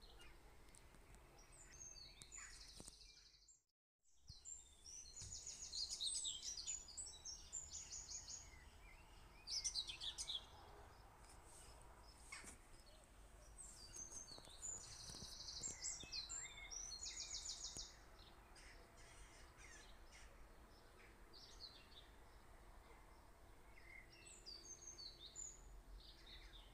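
Small birds singing faintly, with chirps and a few rapid high trills, over a quiet room background; the sound drops out briefly about four seconds in.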